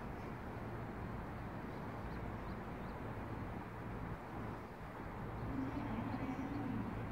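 Steady outdoor background rumble with a low hum, and a few faint bird chirps now and then.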